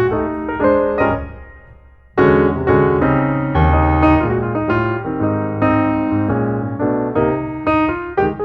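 Background piano music: a phrase fades out about two seconds in, then a new phrase starts abruptly and carries on.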